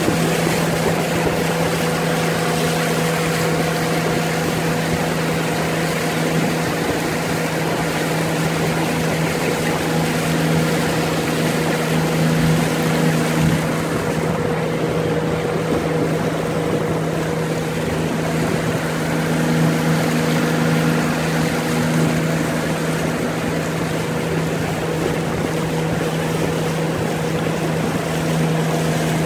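Small boat's outboard motor running steadily at an even pitch under way, with water rushing along the hull.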